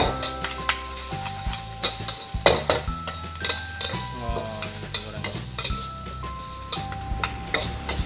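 Fried rice sizzling in a wok while a metal ladle and spatula stir and toss it, scraping and clanking irregularly against the wok's sides.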